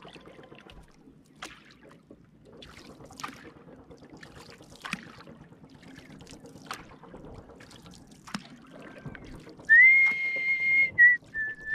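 Light splashing and dripping from a wooden paddle worked alongside a small outrigger canoe, with scattered faint knocks. Near the end a loud whistled note is held steady for about a second, followed by two short whistles.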